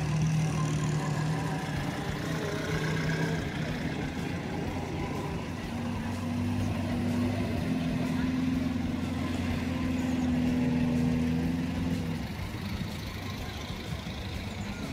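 Vintage and classic cars driving slowly past one after another, their engines running at low speed. A steadier, higher engine note comes in about halfway through and fades away a few seconds before the end.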